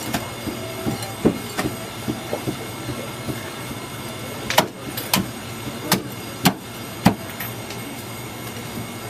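Cleaver chopping char siu (barbecued pork) on a thick round wooden chopping block: sharp single chops, with a run of five loud ones about half a second apart around the middle, over a steady low hum.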